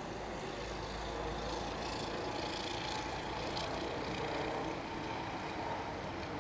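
Chevrolet Avalanche's 5.3 L V8 idling, a steady low rumble.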